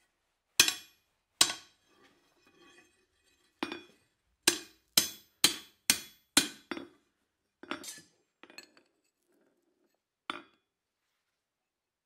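Hand hammer striking a hot 1/2 x 1 inch steel bar over the anvil's edge, bending it down: about a dozen sharp, ringing metal-on-metal strikes at uneven intervals, with a quick run of five near the middle.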